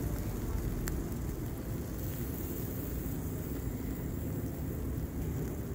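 Steady low rumble of outdoor street background noise, with a single sharp click about a second in.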